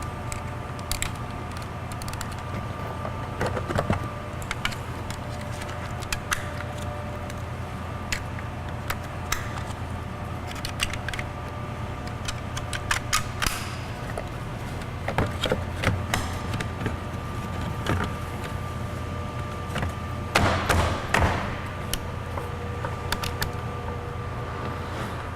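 Scattered clicks, knocks and rattles of a plastic power-window switch panel being handled, connected and snapped into a car door panel, with a cluster of louder knocks about twenty seconds in, over a steady low hum.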